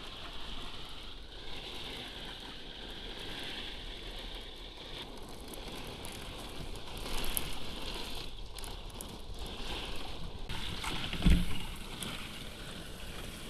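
Steady rain pouring down, with wind. A brief low thump comes near the end.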